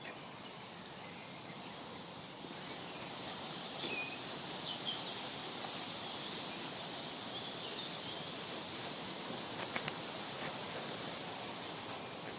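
Steady rush of falling water, with short bird chirps over it, a cluster about three to five seconds in and a few more near the end. A couple of light clicks come about ten seconds in.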